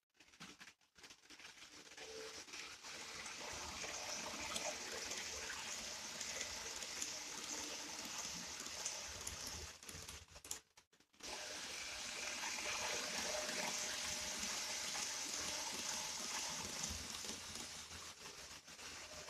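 N-gauge model train running on its track: a steady hissing rumble of wheels on rail and motor, which drops out for a moment about ten seconds in.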